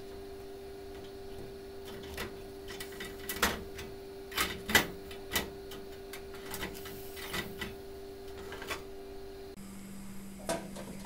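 Plantains being turned over by hand on the wire rack of a tin-plate stovetop oven: a string of irregular light knocks and metallic clicks, the loudest in the middle, over a steady low hum.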